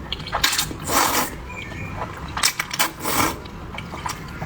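Close-miked eating sounds: sharp crackling clicks and a couple of short crunchy chewing bursts, about a second in and again around three seconds in.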